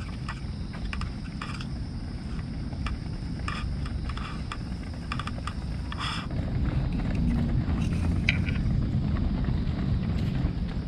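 A brown-tabby-and-white cat purring steadily as it is stroked: a low rumble that gets stronger after about six seconds. Light scratchy rustling of a hand in fur and dry leaves comes and goes over it.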